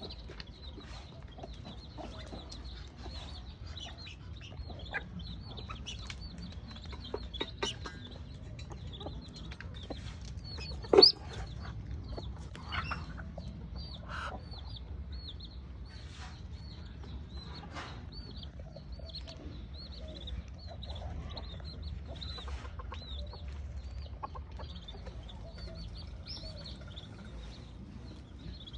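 Backyard chickens clucking, over many short high chirps that repeat throughout. About eleven seconds in there is one short, sharp, loud sound.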